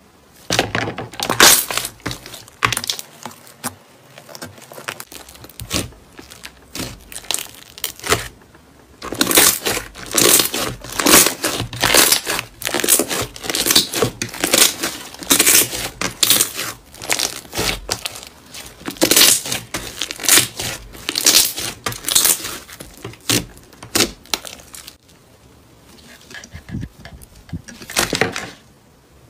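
Hands squeezing and stretching a glossy green slime, giving wet sticky clicks and pops in irregular runs. There is a quieter pause about four seconds in and another near the end.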